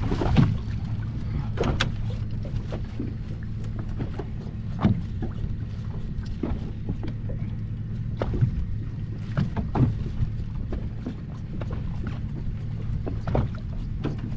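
A small leisure boat's engine idling with a steady low hum, with scattered knocks and slaps over it, such as water against the hull.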